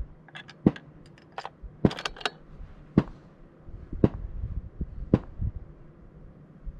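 Sharp clicks and knocks from handling a scoped rifle, with no shot fired. A quick cluster comes in the first couple of seconds, some with a bright metallic ring, then single knocks about a second apart.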